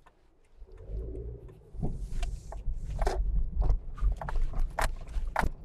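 A run of irregular clicks and knocks of small objects being handled close to the microphone, over a low rumble that sets in about a second in.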